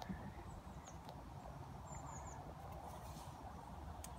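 Faint outdoor background with a small bird chirping in short, high, falling notes, one run of three about two seconds in, over a steady low rumble, with a few sharp clicks.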